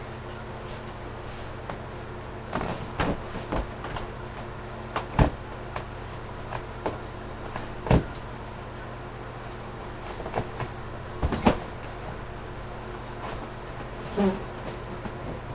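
A giant 96-inch latex balloon squeaking and knocking irregularly under a person's weight as they lie on it. There are sharp rubbery squeaks and thumps a second or a few seconds apart, the loudest about 5, 8 and 11 seconds in, over a steady low hum.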